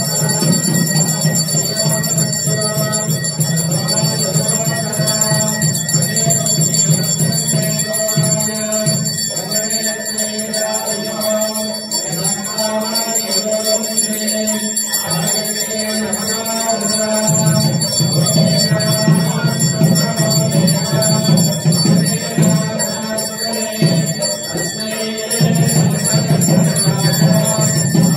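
Hindu temple bells ringing continuously during the aarti lamp offering, over devotional music with a low steady drone.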